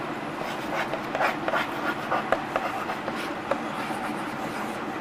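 Chalk writing on a blackboard: a quick run of short taps and scrapes as letters are written, over a steady background hiss.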